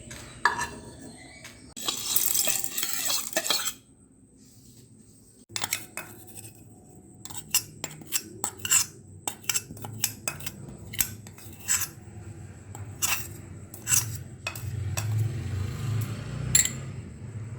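A spoon stirring and clinking against a metal cooking pan. A dense scraping, rustling stretch comes about two seconds in, followed by a long run of sharp, irregular clinks.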